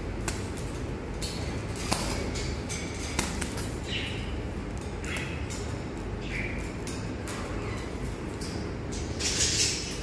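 A metal pen clicking and scraping against wire cage bars and a parakeet's beak as the bird nibbles at it: scattered sharp clicks, short scrapes every second or so, and a longer, louder scrape near the end, over a steady low rumble.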